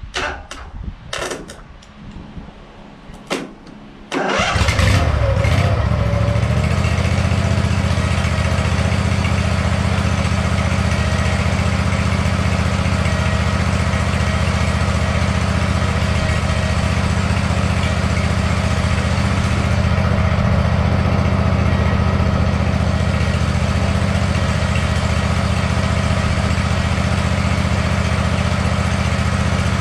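Zero-turn lawn mower engine starting about four seconds in, after a few sharp clicks, and then running steadily.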